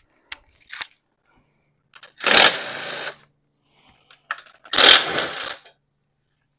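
Cordless ratchet running in two short whirring bursts, backing out the radiator fan's top mounting bolts, with a few small clicks of tool and metal between.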